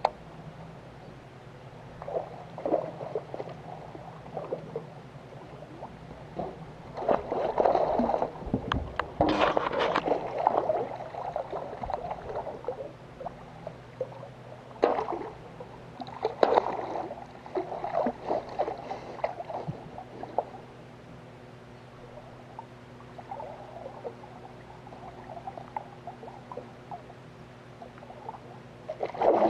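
A hooked Murray cod splashing at the surface beside a small boat as it is played and landed by hand, in irregular bursts that come loudest about a quarter of the way in and again around the middle. A steady low hum runs underneath.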